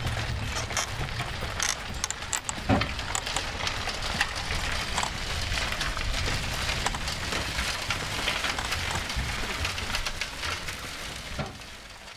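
Horse-driven oil mill working: an even noisy clatter with scattered knocks and a low rumble, fading out near the end.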